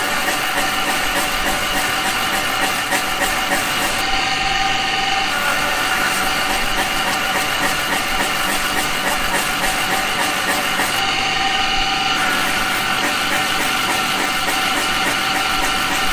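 Electric motor spinning a wire brush wheel with a steady whine, as a trimmed coconut is pressed against it and the bristles scrape off its husk fibre. The brushing noise shifts a little about four seconds in and again about eleven seconds in.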